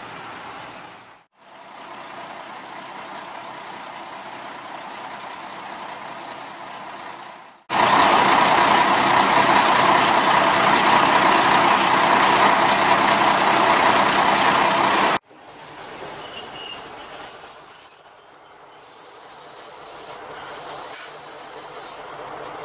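A standing KiHa 32 diesel railcar with its engine running, heard close up in three short shots. In the middle shot, beside the car body, it is much louder: a steady noise with no clear rhythm.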